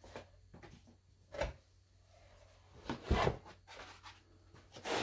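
Unpacking handling noise: foam packing inserts and cardboard rubbing, with a short knock about one and a half seconds in and a louder clunk and rustle around three seconds as a black metal machine part is lifted out of its box.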